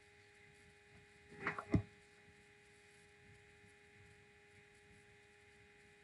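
Quiet microphone room tone with a faint steady hum of two tones. About a second and a half in comes a brief noise ending in a low thump.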